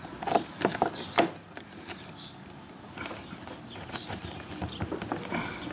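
Small plastic clicks and taps of a power plug being worked into a kayak's power port socket: a cluster of sharp clicks in the first second or so, then lighter scattered ticks.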